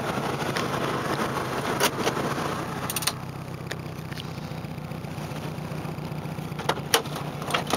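Saturn SW2's 1.9-litre four-cylinder engine running while misfiring, a steady low hum with rapid pulsing under road noise. The road noise drops about three seconds in, and a few sharp clicks come through.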